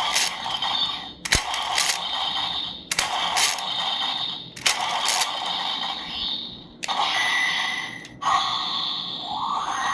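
Electronic sound effect from an Ultraman Blazar toy sword's small built-in speaker. This is its main effect, triggered by the fifth pull of the lever: a string of short noisy bursts, each opening with a sharp click, about every second and a half, then a rising tone near the end.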